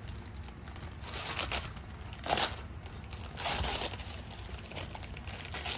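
Packing sleeve and wrapping on a potted orchid crinkling and rustling as it is handled and pulled off, in about three bursts.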